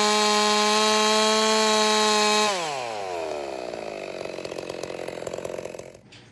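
Ported Stihl 660-clone two-stroke chainsaw held at full throttle at a steady high pitch. About two and a half seconds in the throttle is released, and the revs wind down and die away near the end.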